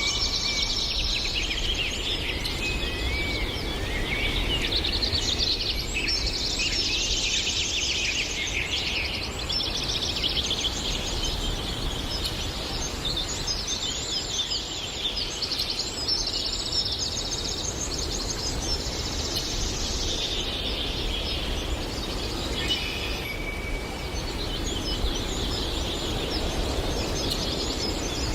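Many birds singing and chirping at once, overlapping trills and rapid chirps, over a steady low background rumble.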